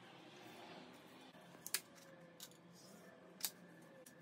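Faint scratching of a marking tool drawn along an aluminium straightedge on a metal sheet, as layout lines are marked out. Two sharp clicks come about a second and a half apart, as the rule is knocked or set down on the sheet.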